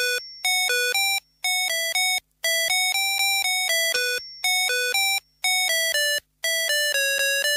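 Music: a simple electronic melody of short, steady-pitched beeping notes, played in quick runs with brief pauses between them.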